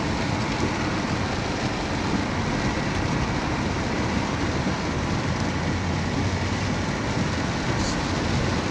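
Heavy rain pouring down in a steady wash of noise.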